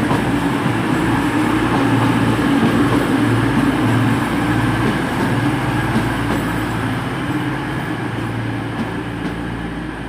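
CrossCountry Class 220 Voyager diesel multiple unit arriving at the platform, its underfloor diesel engines running with a steady low rumble that eases off slightly over the last few seconds.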